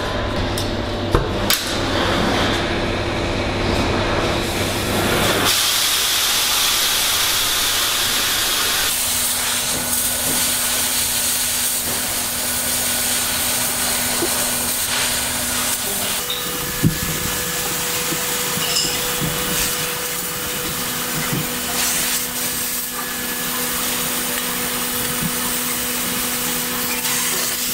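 Oxy-fuel cutting torch cutting through a steel pipe wall: a loud, steady hiss of the flame and cutting-oxygen jet that sets in about five seconds in. A few knocks of handling come before it.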